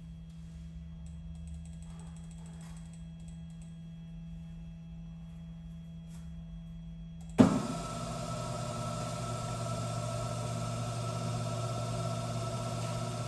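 Desktop CNC lathe spindle turning the chuck and workpiece at its set speed of about 1000 RPM: a steady motor hum with a light whine. About seven seconds in comes a sharp knock, after which the hum is much louder and fuller.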